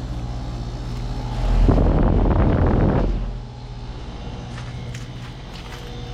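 Outdoor air-conditioner condenser unit running with a steady low hum. About a second and a half in, a loud rushing noise rises over it for nearly two seconds, then falls away, leaving the quieter hum.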